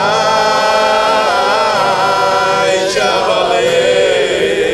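A group of people singing an anthem together, holding one long note, then moving into a new phrase about three seconds in, with an acoustic guitar played along.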